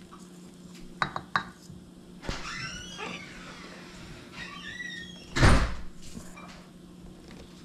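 Wire whisk clicking and scraping against a stainless steel mixing bowl while flour is stirred into wet banana-bread batter. A single loud thump comes about five and a half seconds in.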